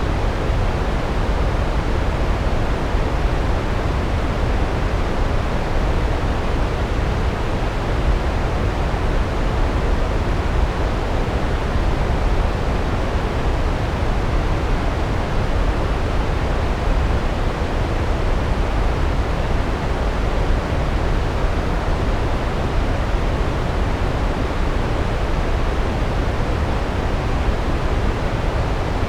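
Large waterfall: a steady, deep rush of falling water, even and unbroken throughout.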